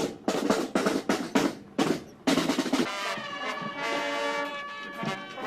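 Marching band playing: a run of snare and bass drum strokes, then about three seconds in the band comes in with held chords.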